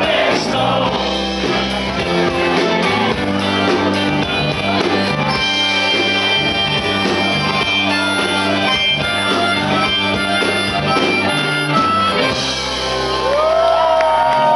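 Live rock and blues band playing, with a harmonica played through the vocal microphone, holding long notes over electric guitars, bass and drums. A few sliding notes come in near the end.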